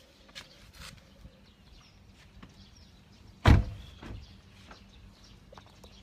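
A single loud thump about three and a half seconds in, dying away quickly, with a fainter knock just after, over faint scattered clicks.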